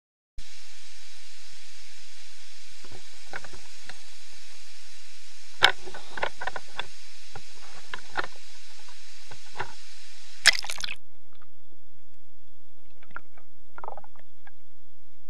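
Waterfall heard through a waterproof action-camera housing as a steady hiss, with knocks of the housing being handled; about ten seconds in, a loud splash as the camera goes under the water. The hiss then gives way to muffled underwater sound with a faint steady high whine and a few soft knocks.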